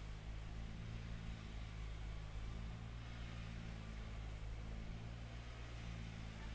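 Diesel engine of asphalt paving machinery, such as a road roller or paver, running steadily as a low, even hum.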